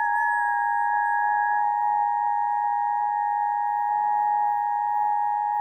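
Emergency Alert System attention signal: two steady tones sounding together, held without a break.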